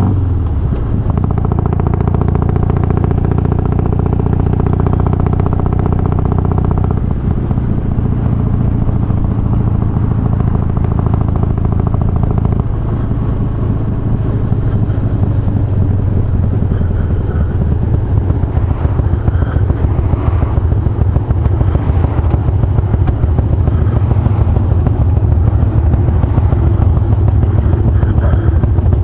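Harley-Davidson Twin Cam 88 V-twin with Feuling 525 cams and hydraulic cam chain tensioners running steadily under way, its engine note changing about 7 seconds and again about 13 seconds in.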